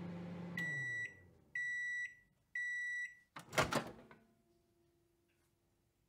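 Microwave oven finishing its cycle: the running hum winds down, three high beeps signal that the timer has run out, and the door latch pops open with a clunk. A faint steady hum follows.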